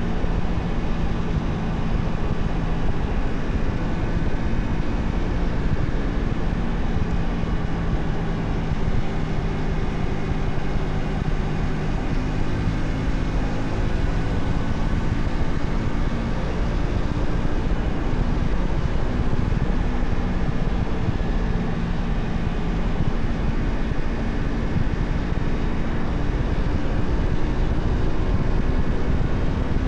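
Honda Shadow 125's small V-twin engine running steadily while the motorcycle cruises; its note rises and falls a little with the throttle.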